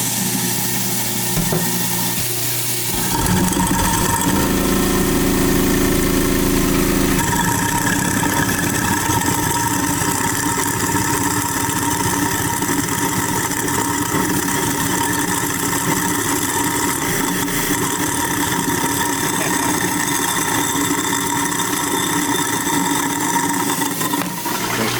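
InSinkErator Badger 1/2 hp garbage disposal running with water flowing through it: a steady motor hum, rougher and louder for a few seconds about three seconds in as it grinds up a lemon, then running evenly.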